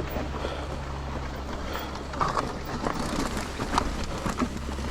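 Wind on the microphone over a steady low rumble, with scattered clicks and rattles from a mountain bike (a 2021 Trek Rail 9.7) riding over a rough, washed-out trail.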